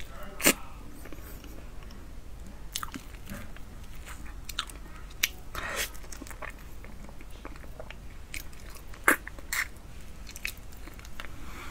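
Close-miked mouth sounds of someone eating durian: chewing and lip-smacking with irregular clicks, the sharpest about half a second in and again around nine seconds.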